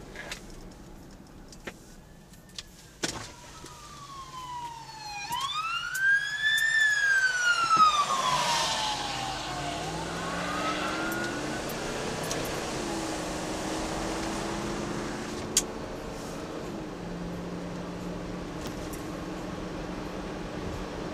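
Emergency vehicle siren in a slow wail, rising and falling in pitch about twice, loudest about six to eight seconds in, then fading out. Car engine and road noise carry on under it and after it, with a few sharp clicks.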